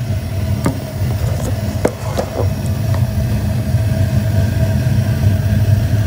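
Main gas burner of a State Select 50-gallon water heater burning steadily with a low rumble after the thermostat has been turned up, showing the gas valve open and the relit pilot holding. A few light clicks sound about one to two seconds in.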